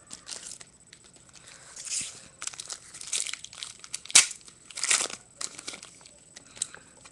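Foil wrapper of a trading card pack crinkling and tearing as it is opened by hand, with irregular crackles and one sharp crack about four seconds in.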